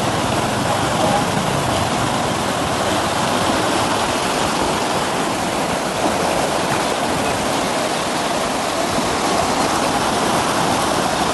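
Canal water rushing and churning through a concrete sluice where a small canal branches off a larger one. It is a loud, steady rush of water with no breaks.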